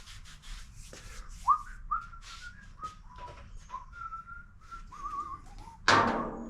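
A person whistling a short tune of separate notes while waiting. Near the end comes a sudden loud noise that fades over about half a second.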